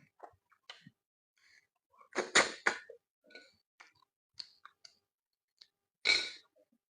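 Close-up mouth sounds of someone eating: chewing and lip smacks, scattered small clicks with a louder cluster about two seconds in and another near the end.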